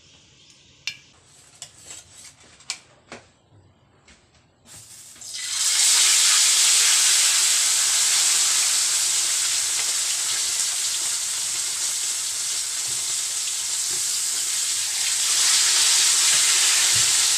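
A few faint clicks and knocks. Then, about five seconds in, hot cooking oil in a wok starts sizzling loudly and steadily, the sound of frying with oil spattering.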